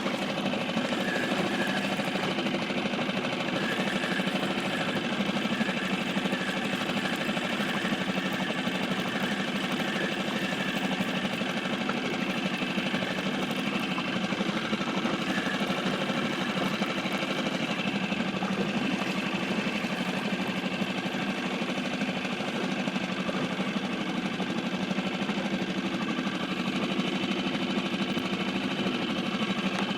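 Small Seatan outboard motor running steadily at an even speed.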